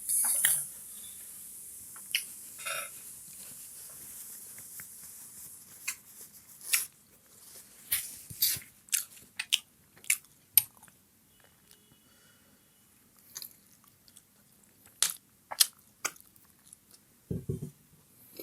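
Close-miked mouth sounds of eating steamed chicken momos: chewing and biting with irregular wet clicks and smacks. A short hiss comes in the first few seconds, and a low thump comes near the end.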